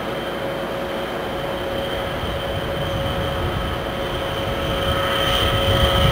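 Diesel yard switcher locomotive idling: a steady engine drone with a high steady whine over it, growing a little louder near the end.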